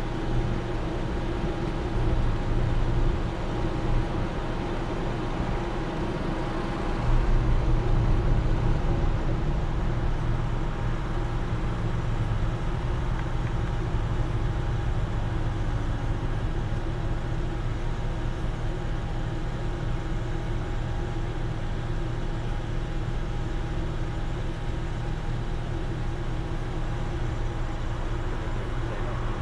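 Car engine idling with a steady low hum, a little louder for a few seconds from about seven seconds in.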